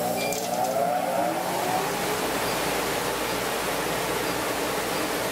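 Laser cutter running at full power with its air assist blowing, a steady loud hiss. Under it, a whine rising slowly in pitch fades out about two seconds in.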